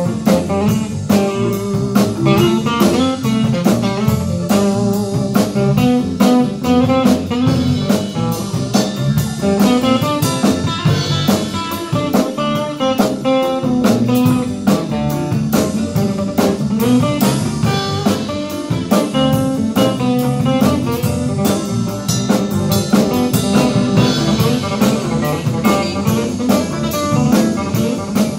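Live band playing guitars over a drum kit keeping a steady beat.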